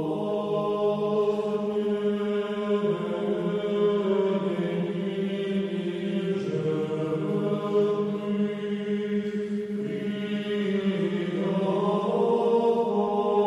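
A choir singing slow Orthodox church chant in long held notes that shift pitch every few seconds.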